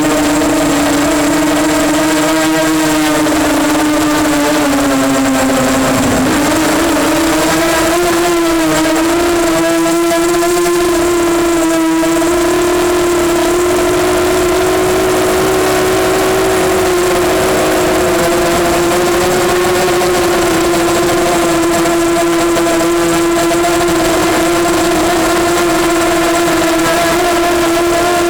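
EMax Nighthawk 250 quadcopter's brushless motors and propellers whining in flight, a steady buzzing tone that drops in pitch about six seconds in as the throttle eases, then climbs back and holds steady.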